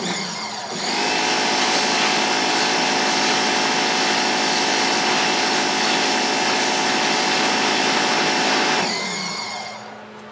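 A 4,200 PSI pressure washer fires a 0-degree red-nozzle jet into a pumpkin's rind: a loud, steady hiss over an even whine. It comes on about a second in and dies away about a second before the end.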